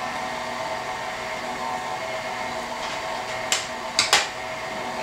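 Stand mixer running at low speed with a steady hum as it mixes a thick batter in its stainless steel bowl. About three and a half seconds in, a few sharp clicks sound as a utensil knocks against the bowl.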